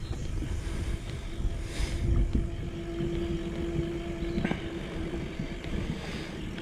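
Wind buffeting a bicycle-mounted action camera's microphone, with the rumble of the bike rolling over a paved trail. A faint steady hum runs from about a second in to about five seconds, and a single click sounds near the end.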